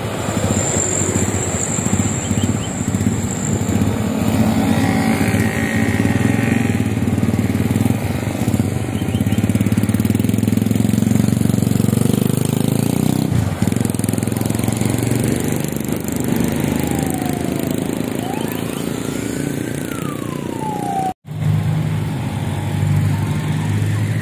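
Road traffic passing close by: a diesel cargo truck's engine and tyres, then other motor vehicles going through the bend. A whine rises and falls near the end, and the sound cuts out for an instant about 21 seconds in.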